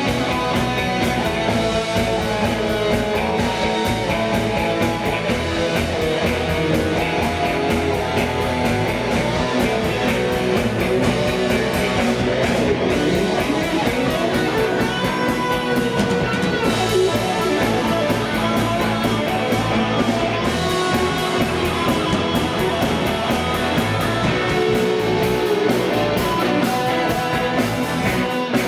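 Live rock band playing an instrumental passage: electric guitar lead line over bass and drums.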